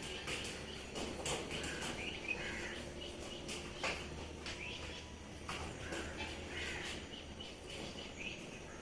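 Birds chirping and calling outdoors, many short calls, mixed with scattered sharp clicks and knocks over a low steady hum.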